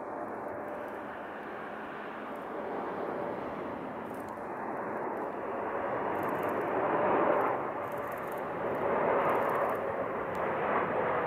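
Boeing 777F freighter's twin GE90 turbofans on final approach: a steady jet rush that grows louder as the aircraft descends close by, with a faint whine that slowly drops in pitch.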